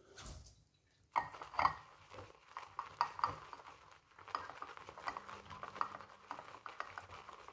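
Badger-hair shaving brush swirled fast in a bowl, whipping shaving soap into lather: a quick run of small clicks and scratchy swishes that starts about a second in.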